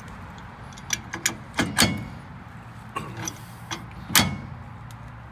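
Adjustable steel wrench clinking against the nut and threaded shaft of a homemade axle-bearing puller as it is fitted and turned to take up slack in the puller bolt. About nine sharp metallic clicks come in two clusters, the loudest about two seconds and four seconds in, over a steady low hum.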